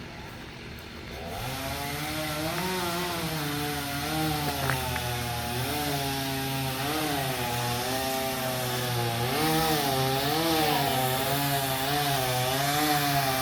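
Chainsaw starting about a second in and cutting through wood, its engine pitch dipping and rising as the chain loads and frees in the cut. Under it runs a low steady engine rumble.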